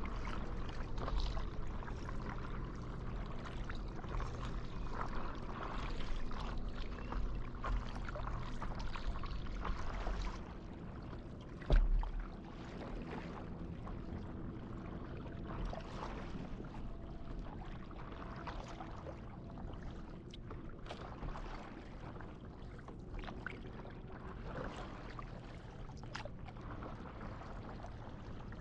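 Water lapping and splashing around a stand-up paddleboard as it is paddled, with the small splashes of the paddle dipping. A low rumble drops away about ten seconds in, and a single sharp knock comes about two seconds later.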